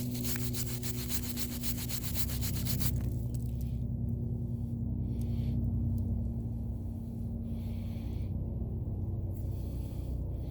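Scratchy rubbing and scrubbing on a rusted, dirt-caked old pocket knife being cleaned in the hand: fast strokes for about the first three seconds, then shorter bursts of scraping. A steady low hum runs underneath.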